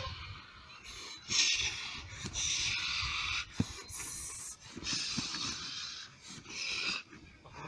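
Puppy breathing hard and snorting through its nose while gripping and tugging a jute bite pillow, in a series of harsh, hissy breaths.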